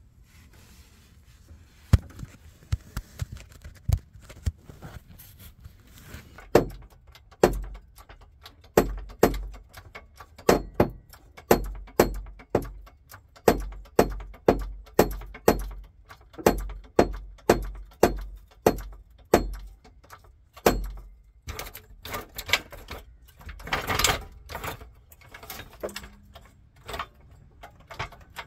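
Hand tools knocking and clinking against metal while working a transmission bolt from under a pickup: a string of sharp knocks, about one a second through the middle, with a longer rustling scrape near the end.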